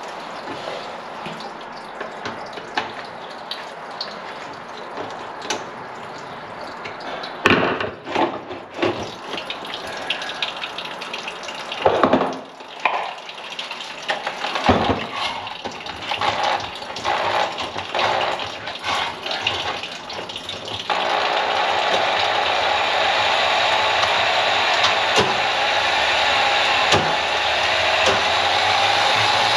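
Wet scooping and clattering while a grease-blocked kitchen drain is worked on by hand, then about two-thirds of the way in an electric hand-held drum drain-cleaning machine starts and runs steadily, driving its cable into the clogged drain line.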